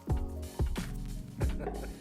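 Background music with a steady beat, a strike about every 0.7 seconds over held bass and melody notes.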